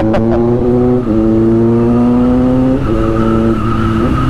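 Kawasaki Z900's inline-four engine running while the motorcycle is ridden, its note stepping up in pitch about a second in, then dropping back twice and rising again near the end.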